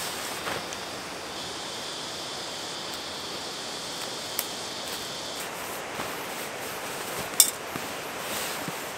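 Nylon hammock and tarp fabric rustling as they are taken down and stuffed away, over a steady outdoor hiss. A high steady tone runs for a few seconds near the start, and there is a sharp clink about seven seconds in.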